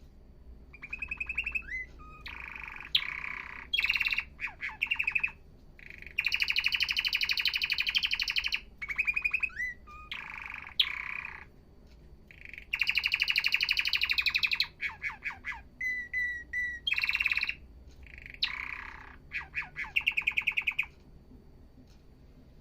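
Domestic canary singing: a series of song phrases, each a fast run of repeated notes or trills, with a few sweeping whistled glides between them and short pauses.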